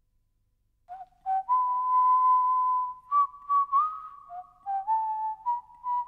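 A person whistling a slow tune, starting about a second in: short notes stepping up into long held notes.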